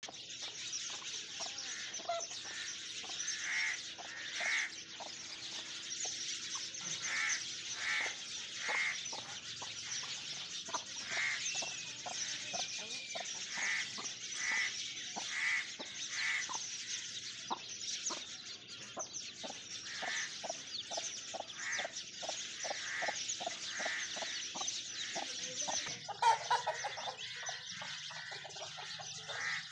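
Chickens clucking: short calls repeating about once or twice a second over a steady high hiss, with a louder, lower call about 26 seconds in.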